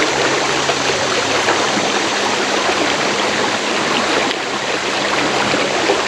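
Steady rush of flowing creek water: an even, unbroken hiss.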